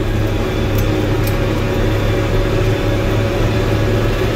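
John Deere 4450 tractor's six-cylinder diesel running steadily while pulling a forage chopper, a constant low hum with a few held tones above it.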